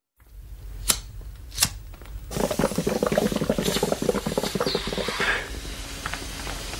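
Two sharp clicks, then about three seconds of rapid glugging and crinkling as water is drunk from a plastic bottle, settling to a quieter steady background with a faint hum.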